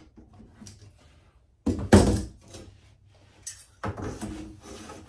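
Loose hardwood cutting-board pieces knocked and pushed together on a workbench: one loud wooden thunk about two seconds in, then wood scraping and knocking against wood near the end.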